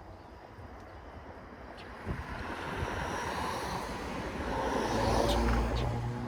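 A road vehicle passing on the road alongside: its tyre and road noise swells from about two seconds in to a peak about five seconds in, with a low engine hum at the loudest point, then begins to fade. Wind rumble on the microphone sits under it.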